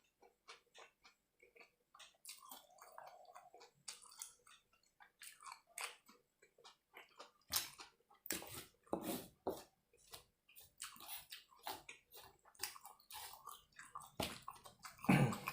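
A person chewing food close to the microphone, with irregular mouth clicks and smacks that grow louder and more frequent about halfway through.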